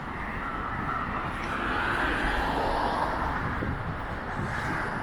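A passing vehicle's noise swells to a peak about two to three seconds in and then eases off, over a low wind rumble on the microphone.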